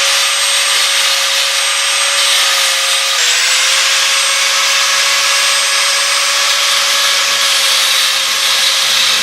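Small high-speed grinder running steadily, grinding down the stubs of sheared bolts that stick up out of their holes. Its pitch dips slightly about three seconds in.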